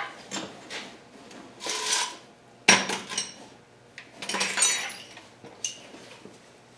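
Metal hand tools clinking and clanking together in a few separate bursts, with a sharp knock about three seconds in and ringing clinks a little later.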